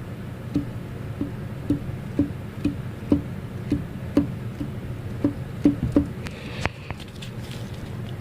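Failing engine running with a regular heavy knock, roughly two knocks a second, over a low steady drone; the knocking stops about six seconds in and a brief higher swish follows.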